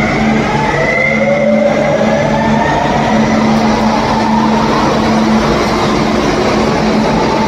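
Electric commuter train accelerating along the platform: the traction motors' whine rises in pitch over the first few seconds above the rushing wheel-and-rail noise, with a steady low hum underneath.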